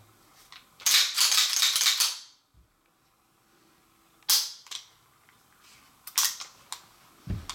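Thumb safety of a Devil Dog Arms Commander 1911 pistol clicking as it is swept up and down: sharp clicks a little past halfway and again about six seconds in. About a second in there is a louder rasp of handling noise lasting over a second.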